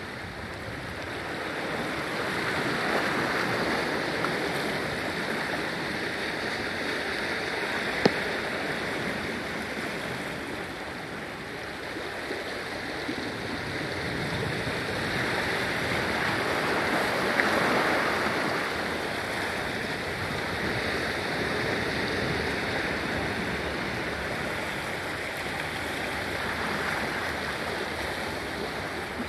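Ocean surf washing against the shore, swelling and fading over several seconds at a time. A single sharp click stands out about eight seconds in, and a fainter one comes later.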